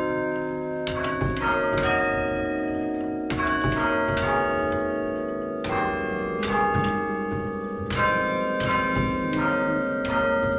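A chime of thirteen church bells cast by John Taylor & Co in 1939, chimed one note after another at an uneven pace. Each struck bell rings on under the next, so the notes overlap.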